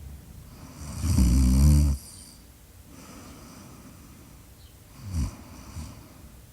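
Snoring in sleep: one loud snore lasting about a second, then quiet breathing, and a shorter snort near the end.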